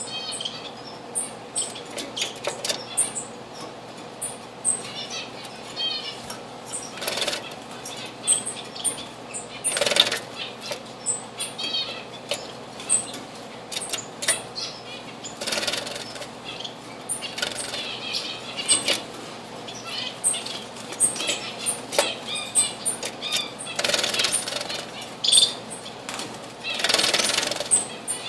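Diamond firetails at a bird bath: bursts of wing fluttering, about six times, over a run of short, high chirps.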